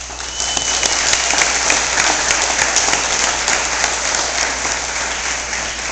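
An audience applauding in a hall, with hand claps close by. The applause swells about half a second in and slowly eases off toward the end.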